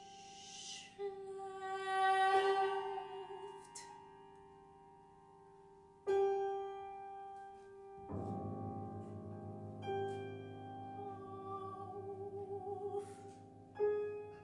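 Contemporary art music for soprano and grand piano: the pianist plays on the strings inside the piano, sounding tones that ring on long, with fresh attacks about one, six and fourteen seconds in, and the soprano holds notes with vibrato. Breathy hissing sounds come at the start and near the end, and a low pulsing drone enters about eight seconds in.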